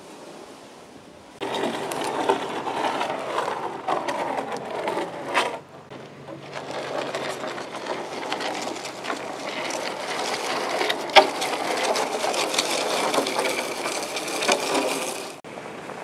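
A log dragged on a steel cable behind a Toyota Tacoma pickup, crunching and scraping over gravel with many sharp stone clicks, the truck's engine running low underneath. It starts abruptly about a second and a half in, drops out briefly near six seconds, and cuts off sharply just before the end.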